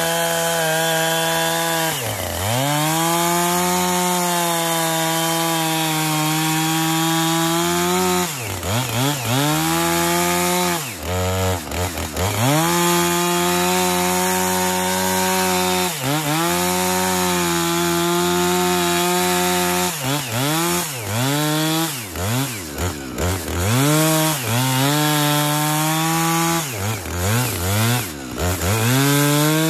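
Husqvarna 455 Rancher two-stroke chainsaw cutting into a log at full throttle. For the first two-thirds it runs in long level stretches, the pitch dropping briefly and climbing back every few seconds. Near the end the engine speed dips and rises about once a second.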